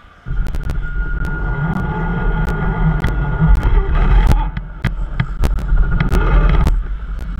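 RC crawler's electric motor starting up and running under load, with a steady thin whine and a low rumble, and many sharp clicks and knocks from the drivetrain and wheels as it moves.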